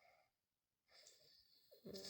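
A sleeping person snoring faintly, breath by breath: one breath begins about a second in and a louder one starts just before the end.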